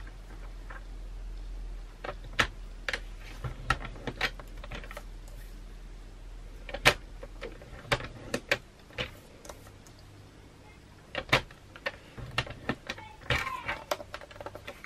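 A paper trimmer's scoring blade being run along cardstock to score it every centimetre all round, with the card shifted and repositioned between passes: a string of irregular sharp clicks and light scrapes.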